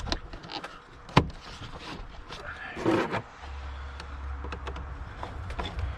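Hand work on a car engine: clicks and knocks of metal parts and tools, with a sharp click about a second in and a short scraping rustle around the middle. A low steady rumble sets in about halfway through.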